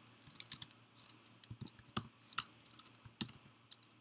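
Typing on a computer keyboard: irregular key clicks in short runs, with a few louder keystrokes among them.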